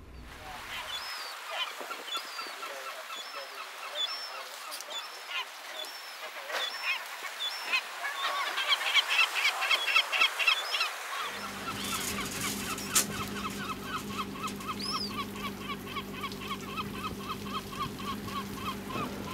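Gulls calling over and over with short, harsh cries, thickening into fast runs of calls around the middle and again later. A steady low hum comes in a little past halfway.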